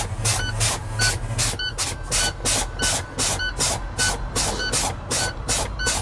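Tractor-trailer air-brake system being drained by pumping the brake pedal: a rapid, even run of sharp air hisses from the brake valve exhausting, about three a second. Over it the low-air-pressure warning beeps steadily about twice a second, because system pressure is below 60 PSI.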